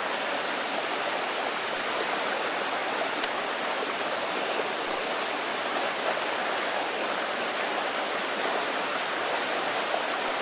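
Steady, even rush of a mountain stream's flowing water.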